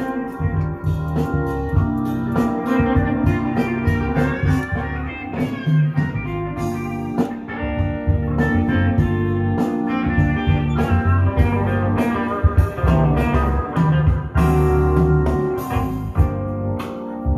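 Music with guitar and held chords over a steady bass line, played through a Marantz 2500 stereo receiver being tested after repair.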